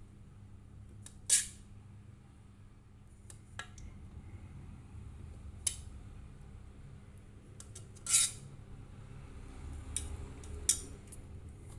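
Cutlery clinking and scraping against a plate during a meal, in short separate strokes a couple of seconds apart, the loudest about a second in and about eight seconds in.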